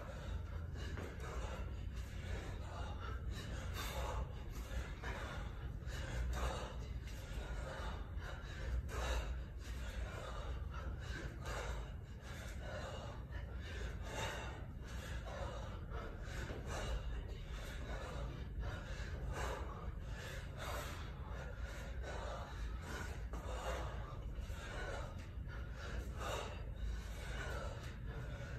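A kettlebell lifter breathing hard, with short sharp breaths one or two a second, timed to his repetitions, over a steady low hum.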